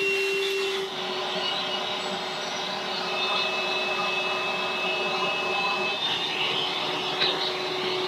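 Vacuum cleaner running steadily with a constant motor whine, its brush nozzle sucking dust and debris out of a gas furnace's burner compartment. The bristles rub and scrape over the metal now and then.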